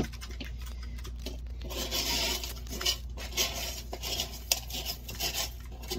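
Rocks in a turtle tank being moved and rearranged by hand, clinking and scraping against each other, with a longer scraping rustle about two seconds in and scattered sharp clicks.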